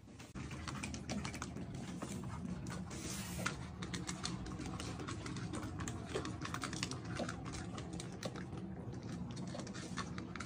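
Several cats eating together from bowls: a quick, irregular patter of small wet clicks and crunches from their mouths and the bowls.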